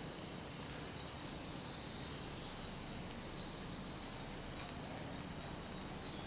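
Faint, steady outdoor background noise with a thin high tone running through it and a few faint ticks.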